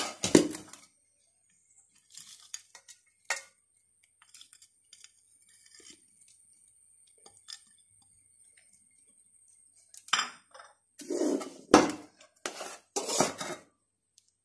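Metal utensils and a plate clinking, knocking and scraping against an aluminium cooking pot: a clatter at the start, a few light clicks, then a run of louder knocks and clinks from about ten to thirteen seconds in.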